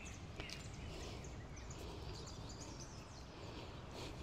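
Faint outdoor background noise, a steady low rumble and hiss, with a few faint high bird chirps.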